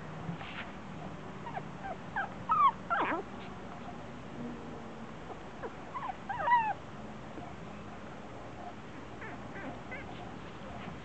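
Havanese puppies yipping and squealing as they play, in two quick clusters of short high calls about two seconds in and again around six seconds in, with a few fainter squeaks near the end.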